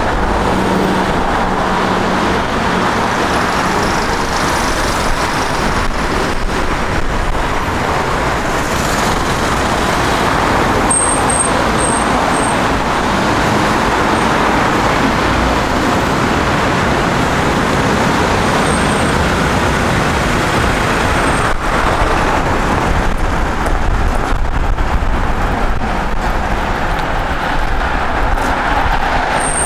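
Steady road traffic noise of vehicles passing along a city street, with a few short high squeaks about eleven seconds in.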